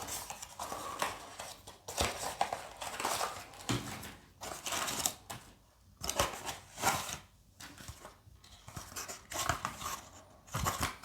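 Packaging being handled: irregular rustling and crinkling of a box's contents, with scattered sharp clicks and taps as small items are lifted out.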